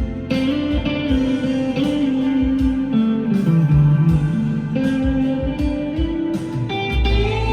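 PRS SE 245 electric guitar with humbucking pickups played clean through an amplifier with reverb and delay. A slow melodic line of single sustained notes drops to a low note about halfway through.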